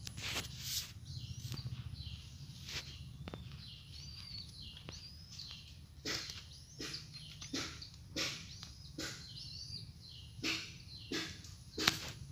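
Small birds chirping, with a run of irregular short knocks or rustles close by, the loudest near the end.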